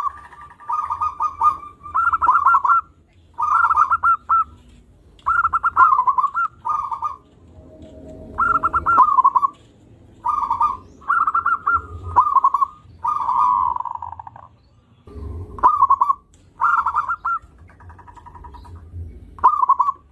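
Zebra dove (perkutut) cooing: more than a dozen short phrases of rapid, stuttering coos, each under a second long, repeated with brief pauses.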